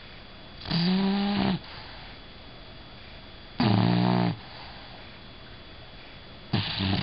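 Bulldog snoring in its sleep: three loud, pitched snores about three seconds apart, each lasting under a second.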